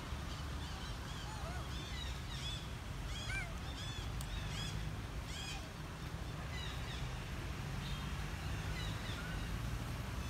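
Birds chirping: many short, arching calls, busiest between about two and six seconds in, over a low steady rumble.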